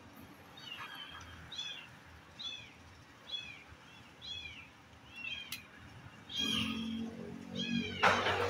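A small animal calling over and over, short high arched calls about once a second. About eight seconds in, a sudden sharp crack, the loudest sound: the Gamma X-1 PCP air rifle firing a slug.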